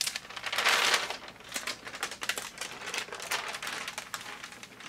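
Sheet of silicone release paper lifted off the fused fabric appliqué and handled, crinkling and rustling: loudest in the first second, then scattered smaller crinkles.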